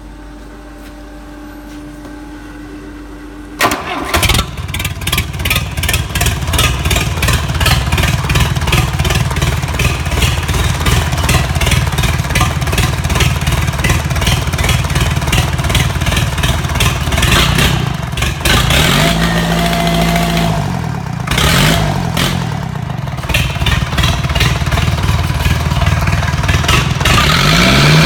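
A multi-cylinder diesel engine on a stand starts suddenly about four seconds in, after a low hum, and runs with a rapid, even knock. In the last ten seconds it is revved up and let fall back several times.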